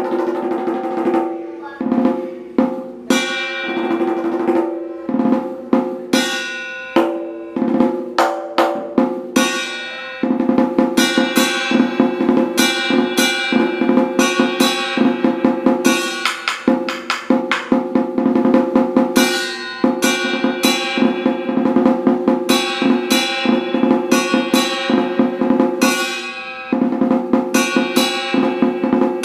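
Vietnamese war drum (trống chiến) played with two wooden sticks: phrases of separate strokes at first, then a dense, fast roll from about ten seconds in, with a short break near the end.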